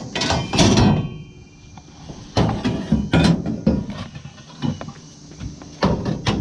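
Scrap metal pieces being handled and loaded, clanking and knocking together. A cluster of clanks at the start leaves a brief metallic ring, then single knocks follow a couple of seconds later and again near the end.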